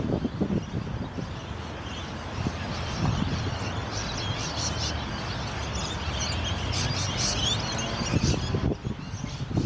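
Small birds chirping, many short high calls that are busiest in the middle of the stretch, over a steady low rumble of wind or distant traffic.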